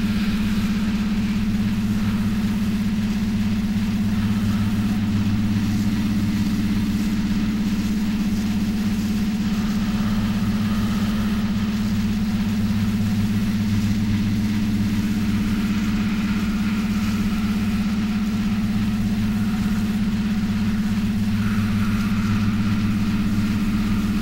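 A steady low electronic drone with a deep hum and faint higher tones drifting in and out: environmental and industrial ambient sound run through a mixer oscillator and modulated by a Korg analog synth.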